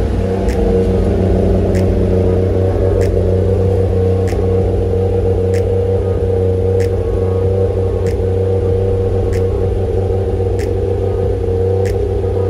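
Toyota 1JZ-GTE turbocharged straight-six idling steadily through its newly built exhaust. A faint tick repeats about every second and a quarter.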